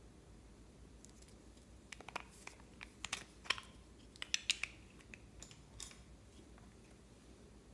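Slime being squeezed and poked by hand, giving a run of small sharp clicks and pops from about two seconds in until about six seconds in.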